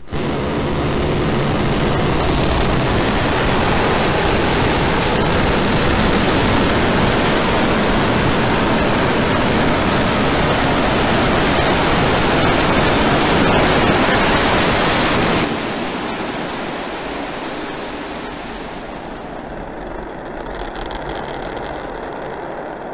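Starship prototype's Raptor rocket engines firing in the landing burn, a loud steady rushing noise. About two-thirds of the way through the highs drop off sharply, leaving a quieter rumble with a brief patch of crackling near the end.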